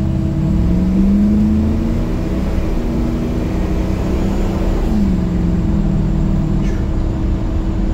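Turbocharged big-cam engine of an S10 pickup accelerating at part throttle, heard from inside the cab: its revs climb about a second in, hold, then rise again around five seconds in and ease back down, with a steady hum underneath.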